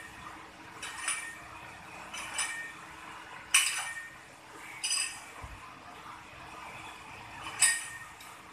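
Cast-iron plates on a plate-loaded dumbbell clinking with each rep: sharp metallic chinks with a short ring, about one every second and a quarter, the loudest about three and a half seconds in.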